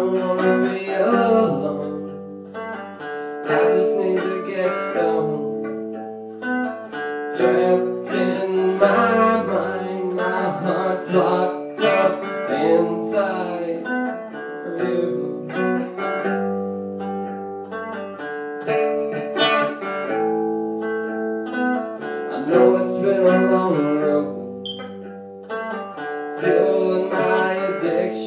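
Stratocaster-style electric guitar played through a small amplifier: chords strummed and picked in a repeating progression, changing every second or two.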